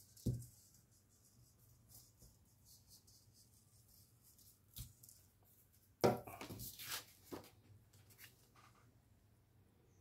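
Hands handling paper and stationery on a desk: a knock just after the start, a sharp click near the middle, then a second or so of rustling and scraping.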